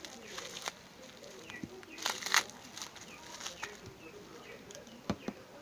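Plastic bubble wrap crinkling and crackling as it is handled and cut open with scissors, with a loud burst of crackling about two seconds in and two sharp clicks near the end.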